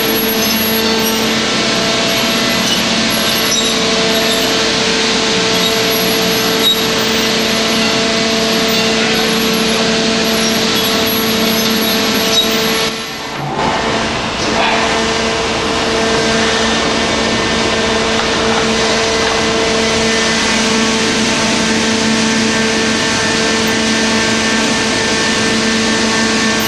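Roundo R-21-S section bending machine running as its rolls bend a heavy square steel bar: a steady machine hum with a constant tone over a loud even drone, briefly dipping in level about halfway through.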